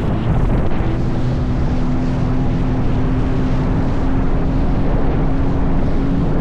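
Jet ski engine running at a steady pitch under heavy wind on the microphone.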